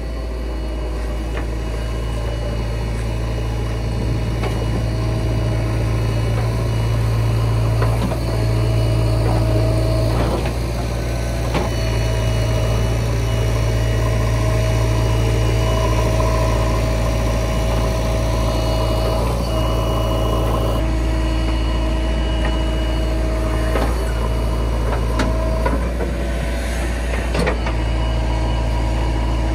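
Heavy diesel engine running steadily at low speed, with a few light knocks and clanks between.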